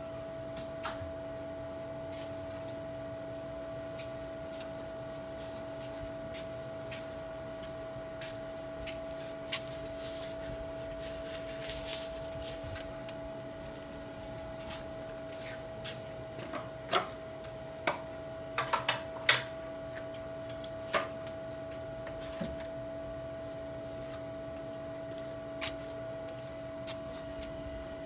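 Weber SmokeFire pellet grill powered on with its fire out: a steady motor hum, with scattered clicks and knocks and a cluster of sharper knocks a little past halfway.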